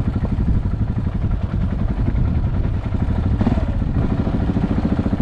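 KTM 690 Enduro's single-cylinder engine running steadily, its firing pulses a rapid, even low thump.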